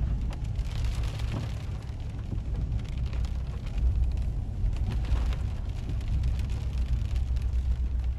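Inside a car driving slowly in rain: steady low rumble of engine and tyres on a wet road, with raindrops ticking on the windscreen.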